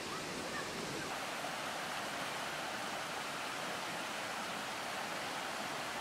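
Mountain stream rushing over rocks, a steady wash of water noise.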